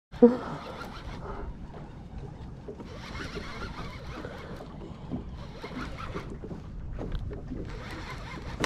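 A loud knock just after the start, then steady wind rumble on the microphone with scattered small knocks and clicks of gear being handled.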